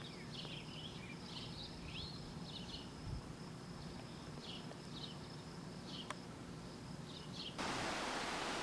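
Outdoor ambience of short, high, irregular chirps with quick pitch glides over a faint steady high whine. About seven and a half seconds in it cuts to a louder, steady hiss.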